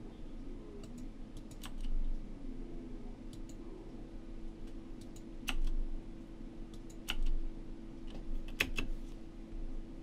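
Computer keyboard typing: a few scattered, irregular keystrokes over a steady low hum.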